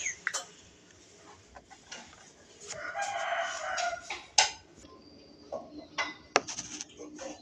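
Plastic toy spatula and toy cookware clicking against a small plastic toy frying pan, with a sharp clack about four and a half seconds in. About three seconds in, a drawn-out animal call lasts about a second and a half.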